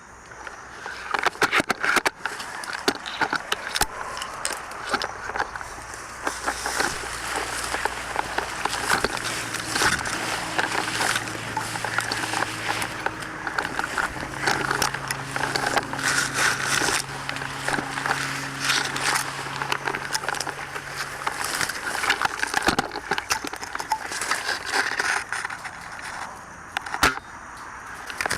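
Continuous crackling and rustling of dry leaves and undergrowth, the sound of someone moving on foot through brush, with many small snaps. A faint low hum runs underneath from about a third of the way in to about three-quarters through.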